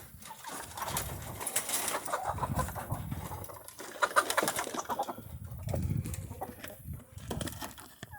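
Farm birds calling, with several low drawn-out calls of about a second each, a second or two apart, and short higher chirps between them.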